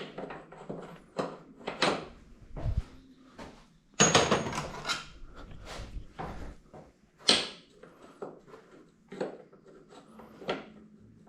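Hand tools being handled and sorted: a run of metallic clicks and knocks, with a louder clatter about four seconds in and another about seven seconds in, as sockets are picked out and tried on the steering stem nut.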